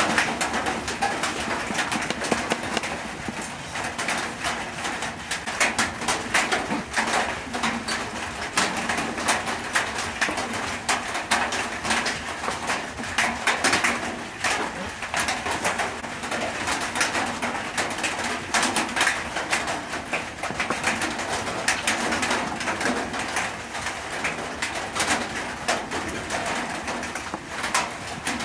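Birds calling steadily in the background, with cooing, mixed with light taps of a knife on a cutting board.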